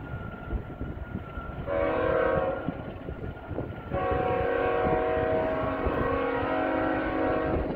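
Diesel locomotive air horn on an eastbound BNSF train sounding two blasts, a short one and then a long one of nearly four seconds. Wind rumbles on the microphone throughout.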